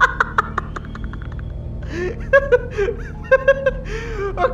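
A man laughing: a quick run of short laugh pulses that tails off within the first second, then, from about two seconds in, a second bout of snickering chuckles.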